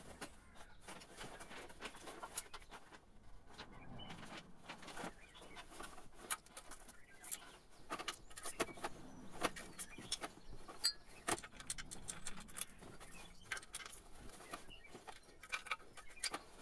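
Sped-up hand-tool work on the water pump bolts: a fast, irregular run of faint, light metallic clicks and clinks as the bolts are torqued.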